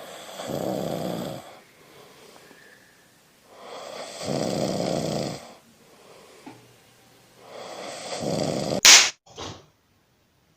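A person snoring in three long, drawn-out snores about four seconds apart. The third ends in a sudden sharp, loud blast, followed by a shorter, fainter one.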